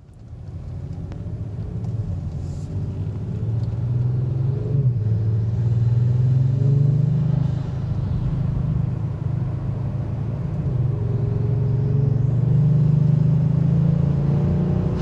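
Kia Stinger GT2's 3.3-litre twin-turbo V6, breathing through Injen short ram air intakes, accelerating as heard from inside the cabin. The engine note climbs, drops suddenly about five seconds in, then climbs again near the end.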